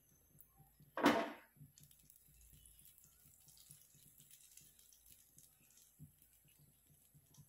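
Butter melting and foaming in a hot tawa on a gas burner: a faint sizzle with many small crackling pops. A brief louder sound comes about a second in.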